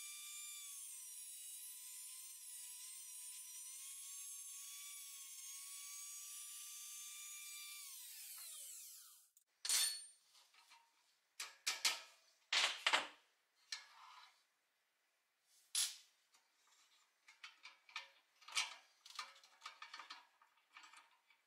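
Handheld rotary tool with a small cut-off wheel whining steadily as it cuts into a pressed-steel toy grader, its pitch sagging slightly now and then under load, then winding down about eight seconds in. After a short pause come scattered sharp metallic clicks and clinks of small steel parts being handled and pried apart.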